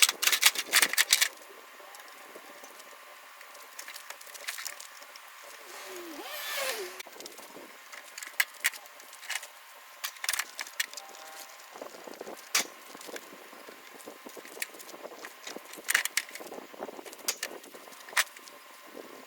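Irregular sharp clicks, knocks and clatter of an air conditioner being taken apart with hand tools, with a quick run of clatter at the start and a short gliding squeak about six seconds in.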